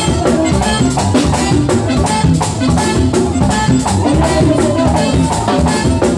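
Live merengue típico band playing: accordion, two-headed tambora drum and a rattling percussion line over a fast, driving beat.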